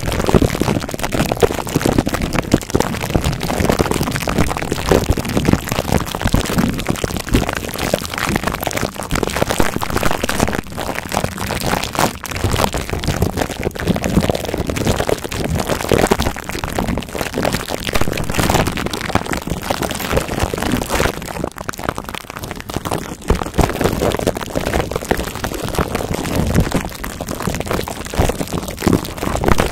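Fingertips rubbing and scratching plastic wrap stretched over a microphone's mesh grille, right on the mic: a dense, steady crackle of tiny clicks.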